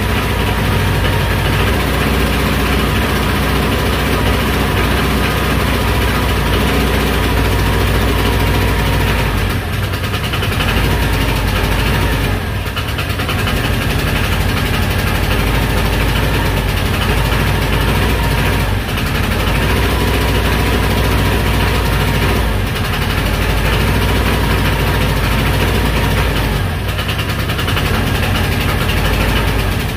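GY6 125cc single-cylinder four-stroke scooter engine running with the throttle held wide open, dipping briefly about five times: a sick engine that will only keep running at full throttle.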